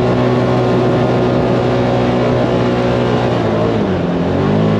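Can-Am Commander XTP side-by-side's V-twin engine running steadily under load, driving up a hill. Its pitch dips briefly about four seconds in, then rises again near the end.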